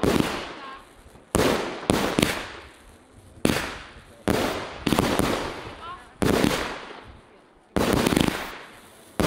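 Fireworks display: around nine sharp bangs of aerial shells bursting, each echoing away over about a second, some coming in quick pairs.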